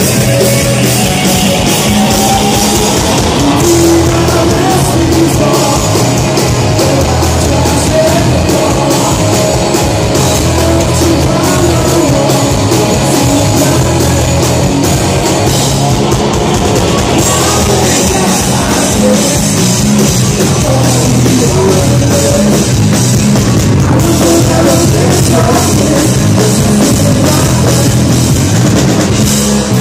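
Live hard rock band playing loud: electric guitar, bass guitar and drum kit, with the guitarist singing.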